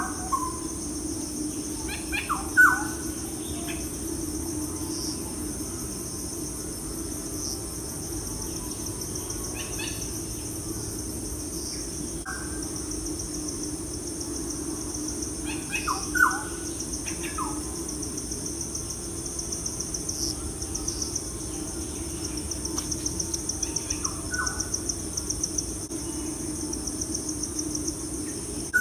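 Birds chirping, with short falling calls every few seconds, over a steady high insect trill like crickets. A low steady hum runs underneath.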